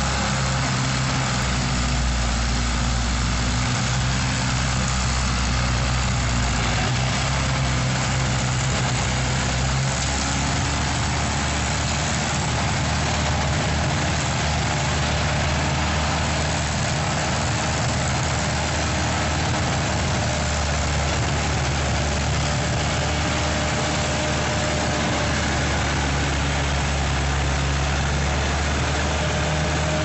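Mini wheel skid-steer loader's engine running steadily, its pitch shifting slightly about a third of the way in and again near the end.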